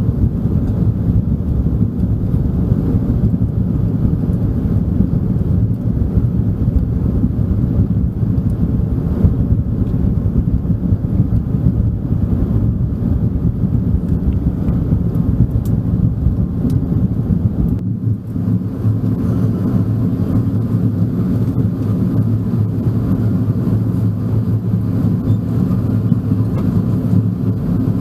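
Steady low rumble inside the cabin of an Airbus A380 airliner, from its Rolls-Royce Trent 970 engines and the airflow. About eighteen seconds in, the deepest part of the rumble drops away and the rest carries on.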